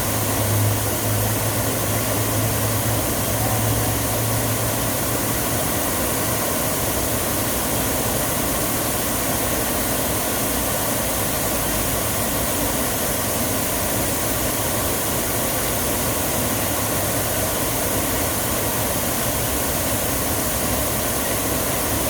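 Artificial waterfall: a steady rush of falling water, with a low hum under it for the first few seconds.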